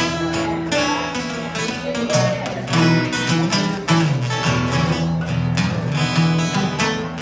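Acoustic guitar playing an instrumental passage, strummed chords over a low line that moves from note to note.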